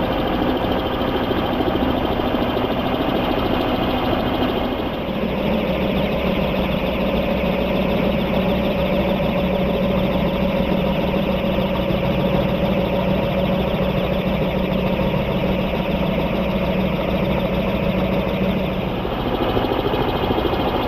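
Radio-controlled scale model Bell 212 helicopter in flight, its sound slowed to 30% speed. At that speed the main rotor turns at about a full-size rotor's pace (around 330–350 rpm), and its blades beat out a rapid, helicopter-like flapping over the steady drone of the drive. The tone of the sound shifts about five seconds in and again near the end.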